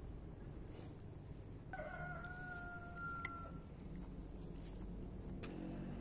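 A single drawn-out animal call lasting about two seconds, pitched and nearly steady, falling slightly at the end. A couple of light metallic clinks from a ladle on a steel wok follow.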